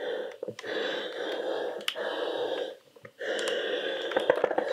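A steam iron pushed back and forth over a knit T-shirt on an ironing board: two long rubbing swishes of about two seconds each, with a short pause between them and a few small clicks.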